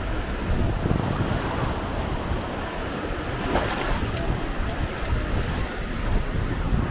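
Small waves washing onto the sand at the shoreline, with wind buffeting the microphone; a brief louder rush about three and a half seconds in.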